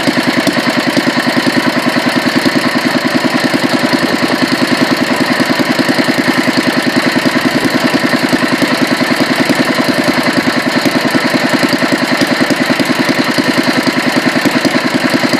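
Petter A1 single-cylinder stationary engine running steadily at an even speed, its firing beat regular and unbroken. Freshly rebuilt and fine-tuned, it runs smoothly without misfires.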